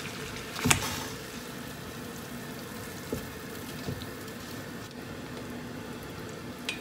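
Water boiling in a stainless steel pot as pig's trotters are put in from a mesh strainer: a loud splash under a second in, then steady bubbling with a few light knocks of food and utensils against the pot.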